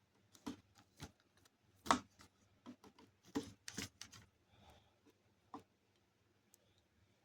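Irregular clicks, taps and knocks of small metal and plastic parts and tools being handled on a workbench, about a dozen over the first five and a half seconds, the loudest about two seconds in.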